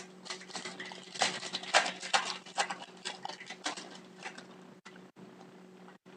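Trading card pack being handled and its cards flipped through: a quick run of papery rustling and crinkling strokes, busiest in the first half and thinning out toward the end.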